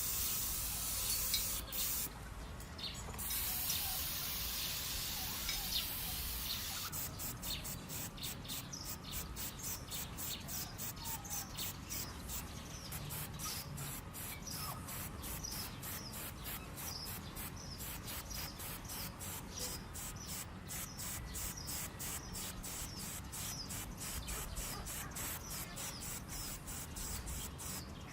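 Paint spraying: a continuous hiss for the first several seconds, then short quick bursts of spray, about three a second.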